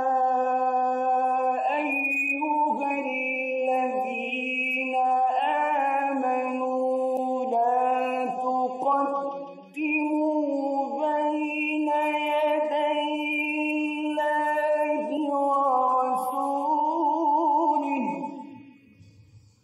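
Male Quran reciter chanting in the melodic mujawwad style, unaccompanied, with hands cupped to the ears. Long ornamented phrases are held on each breath, with a brief break about nine and a half seconds in, and the voice fades out near the end.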